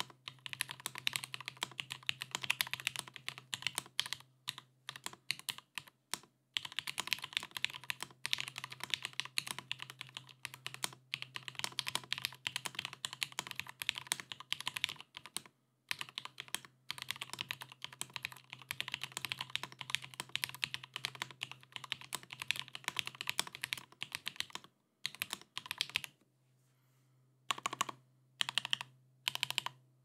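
Typing on a 40% mechanical keyboard with Gateron CJ linear switches, its PCB gasket-mounted on O-rings in a stacked acrylic case. Dense runs of fast key clacks with brief pauses, then a short lull and a few separate, slower keystrokes near the end.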